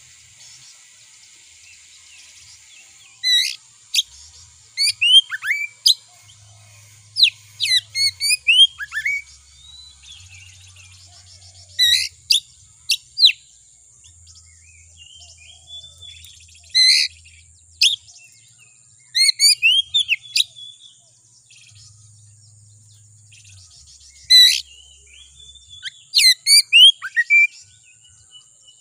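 Oriental magpie-robin (kacer) singing in short, loud phrases of sharp whistles and quick rising and falling notes, with pauses of a second or more between phrases.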